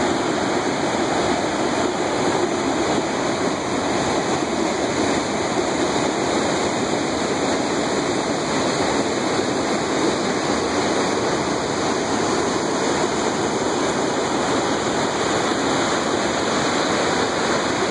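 Mountain stream rushing steadily over rocks, a constant full water roar with no breaks.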